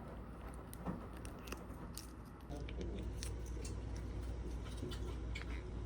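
Close-up sounds of someone biting and chewing food, with small crisp clicks and smacks scattered throughout, and faint voices in the background from about halfway in.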